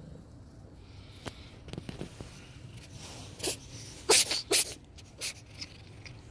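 A cat with a cold sneezing several times in quick succession, short sharp sneezes with the loudest two close together about four seconds in.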